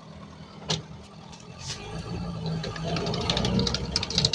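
Sd.Kfz. 2 Kettenkrad's Opel four-cylinder petrol engine on a starting attempt: two clicks, then from about two seconds in the engine turns over and a mechanical clatter of quick ticks builds louder. The engine is reluctant to start.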